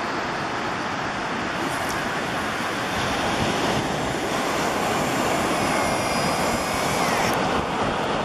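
Surf and wind noise on the microphone, with a faint high whir from a revolving-spool casting reel as its spool spins paying out thin nylon line after a cast; the whir falls in pitch and stops about seven seconds in as the magnetic brake and thumb halt the spool.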